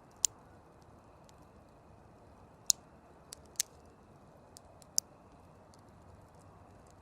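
Campfire burning with a low steady rush and irregular crackles: four sharp pops from the burning wood, with fainter ticks between them.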